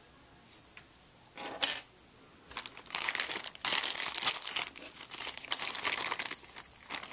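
Plastic packaging crinkling as it is handled, with a short rustle about a second and a half in and then a longer stretch of crackling from about two and a half seconds in.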